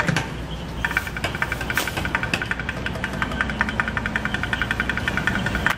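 An engine running steadily with a low hum, joined about a second in by a rapid, regular ticking of several clicks a second.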